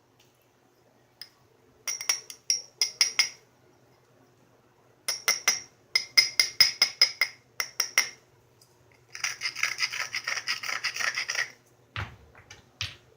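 Flintknapping: stone clicking and scraping against the edge of a stone biface in short groups of sharp, ringing clinks, then a couple of seconds of rapid rasping about nine seconds in as the edge is worked down for the next strike, with a few duller knocks near the end.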